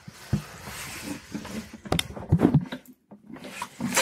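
A few scattered light knocks and clicks with some rustling, the handling noise of people moving things at a table, with a brief hush near the end.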